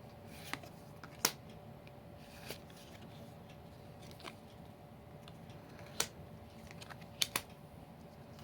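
Trading cards being handled: a few sharp clicks and snaps of card stock at irregular intervals, the loudest about a second in, with a quick pair near the end.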